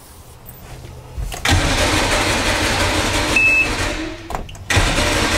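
Evinrude 150 two-stroke V6 outboard being cranked on its electric starter without catching: cranking begins about a second and a half in, breaks off briefly near four seconds and starts again. A short high beep sounds partway through. The motor will not fire, which the mechanic puts down to the oil that had filled its carburettors.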